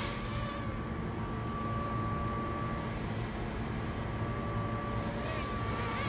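Sharper Image DX-2 toy quadcopter buzzing in flight: a steady propeller whine whose thin high tone fades in and out, over a low steady hum.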